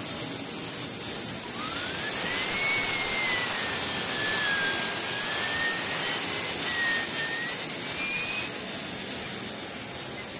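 The small gas turbine engine of a Bergen turbine RC helicopter running on its first run: a steady high whine over a jet hiss, with a second, lower whine that climbs about two seconds in and then wavers up and down until shortly before the end.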